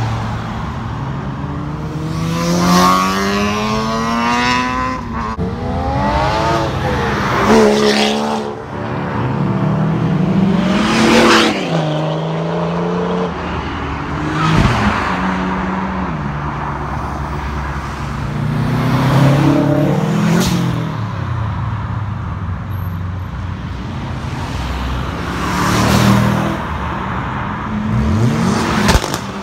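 Cars accelerating past one after another, their engines revving up through the gears. Each climbs in pitch and drops back at the shift, giving a series of loud passes.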